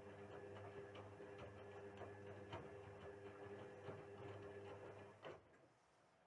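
Indesit WISL 62 washing machine tumbling its drum during a wash: a faint steady motor hum with irregular light clicks. The motor stops about five seconds in.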